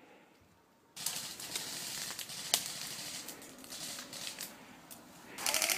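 Brush and dry leaves rustling and crackling with many sharp snaps as someone pushes through dense undergrowth, starting suddenly about a second in. Near the end comes a short burst of fast, evenly spaced clicks, typical of an airsoft electric gun firing on full auto.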